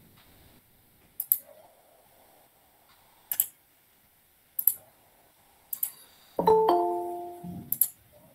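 A few sharp clicks spaced a second or more apart, and about six and a half seconds in a short steady chime-like tone lasting under a second, the loudest sound, coming through a video-call audio feed.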